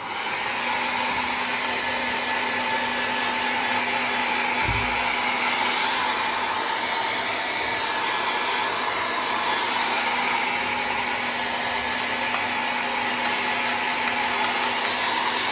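Hair dryer switched on and running steadily, an even rush of air over a low hum, used to dry a wet ink painting on rice paper. There is a brief low thump about five seconds in.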